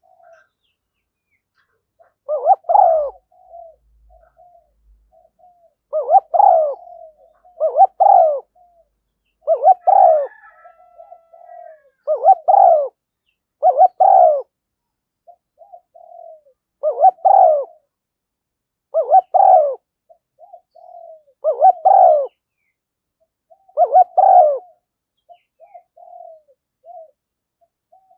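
Spotted dove cooing over and over: a loud two-note coo roughly every two seconds, with softer short coos between. It is a decoy call, used to draw wild doves in.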